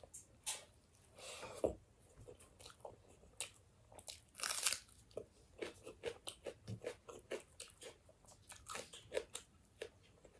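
Close-miked eating sounds: chewing and crunching food with many short, irregular mouth clicks and smacks, and one louder crunch about four and a half seconds in.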